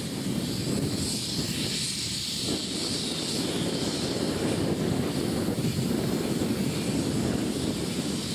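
Flagg Coal #75, a small saddle-tank steam locomotive, working as it approaches: a steady, heavy rush of exhaust with a hiss of steam from its cylinder cocks that swells and eases.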